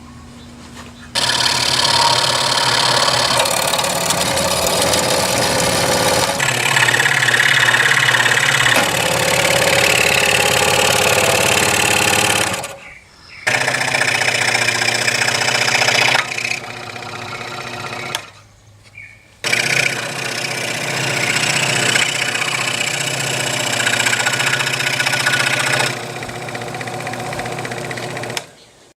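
Electric scroll saw running, its reciprocating blade cutting through 3/4-inch plywood. The saw starts about a second in and stops briefly twice.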